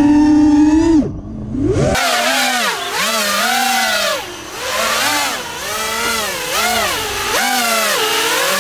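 FPV quadcopter's brushless motors whining and revving, the pitch swooping up and down about once a second as the throttle is worked.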